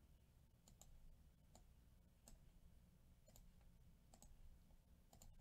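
Near silence broken by a dozen or so faint, irregularly spaced clicks of a computer mouse.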